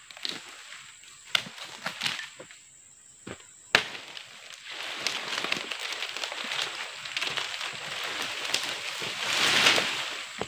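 Dry oil palm fronds crackling and rustling as they are pulled at and pushed through, with a few sharp snaps and knocks in the first four seconds, the loudest nearly four seconds in. Then comes a long rustle that swells as the fronds brush close by, loudest near the end.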